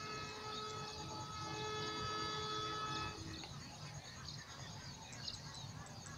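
Distant diesel locomotive air horn sounding one held multi-note chord for about three seconds, then stopping, with faint bird chirps throughout.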